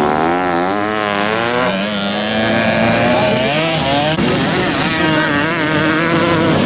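Motocross motorcycle engines revving, their pitch rising and falling as the throttle is worked through a turn, with more than one engine running at once.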